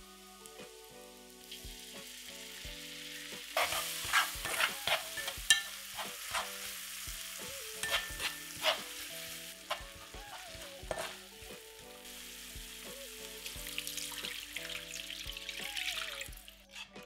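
Minced garlic and chili flakes sizzling in hot oil in a frying pan, with a plastic spatula scraping and stirring through them in quick strokes. Near the end a stream of liquid is poured into the hot pan and it hisses louder.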